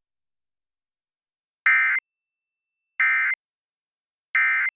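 Emergency Alert System end-of-message signal: three identical short bursts of buzzy digital data tones (the SAME end-of-message code), each about a third of a second long and spaced about 1.3 seconds apart. They mark the end of the alert test.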